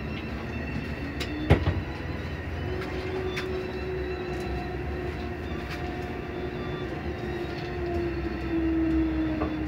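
Cabin of a Scania Lahti 402 city bus under way: steady running noise with a whine that slides slightly lower near the end, small rattles, and one sharp loud strike about one and a half seconds in.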